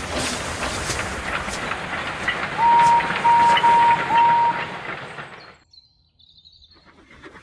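Steam locomotive running, wheels rattling over the rails, with four short toots on its whistle about three seconds in. The train sound then fades away about five and a half seconds in.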